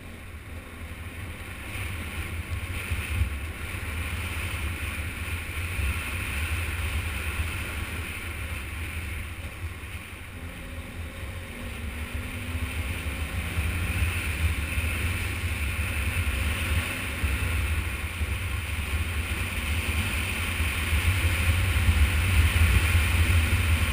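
Motorcycle riding on a gravel dirt road: heavy wind rumble on the bike-mounted camera's microphone over the running engine and the tyres on gravel, growing gradually louder as the bike picks up speed.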